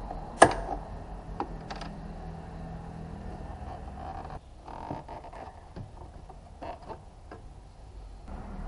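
Handling sounds from parts in a car's engine bay being worked by hand: one sharp click about half a second in, then a few lighter clicks and taps, over a steady background hum.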